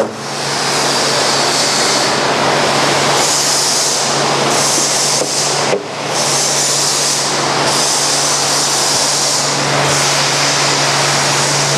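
Forrest Model 204 bandsaw running, its one-inch 3-tooth-per-inch hook-tooth blade cutting lengthwise through a roll of polypropylene film wound on a hard cardboard core: a loud, steady hiss over a low hum, dipping briefly about six seconds in.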